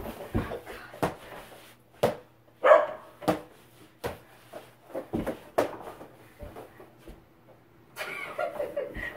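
Irregular knocks and thuds of a small basketball bouncing and of feet moving on a hardwood floor during a mini-basketball game, with a short yelp about two and a half seconds in.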